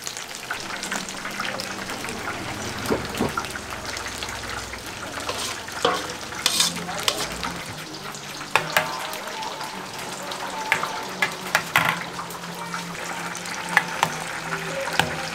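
Food sizzling as it cooks in hot oil or a pan, a steady hiss, with sharp clinks and knocks of metal cooking utensils scattered through.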